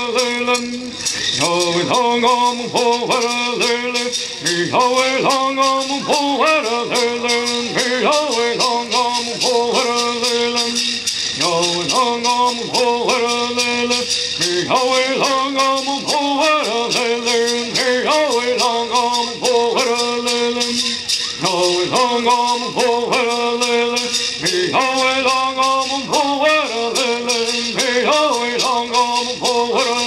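Men singing a Southern California Native American Bird Song together in repeated phrases, accompanied by gourd rattles shaken in a steady fast rhythm.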